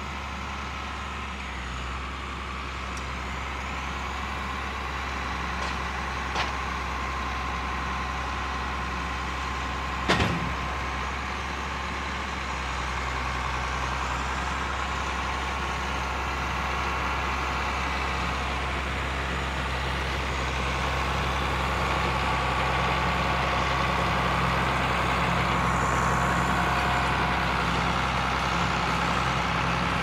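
John Deere 4440 tractor's six-cylinder diesel running steadily while pulling a working round baler, growing louder as the rig draws nearer. A sharp knock stands out about ten seconds in, with a smaller one about six seconds in.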